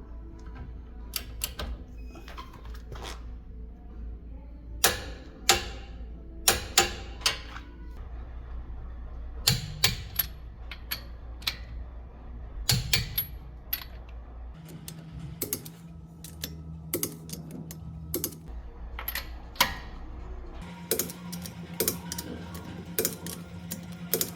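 Irregular sharp clicks and knocks, coming in small clusters of a few at a time, over a low steady hum.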